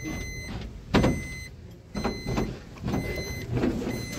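Aerial cable car cabin at the ropeway station: a warning beeper sounds about once a second over a low rumble, with loud clanks and knocks from the cabin and its running gear, the sharpest about a second in.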